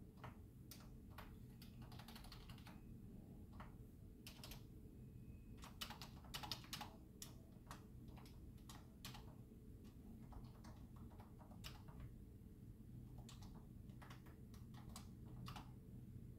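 Faint typing on a computer keyboard: irregular key clicks, coming in a quicker run around the middle, over a steady low hum.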